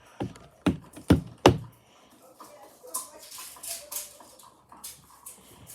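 Hands working Play-Doh on a tabletop: four dull thumps in quick succession, as of the dough being pressed or patted down, then softer rustling and scraping.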